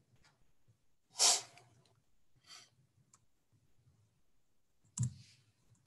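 Near silence broken by a short, sharp breath into a microphone about a second in, with a fainter breath about five seconds in.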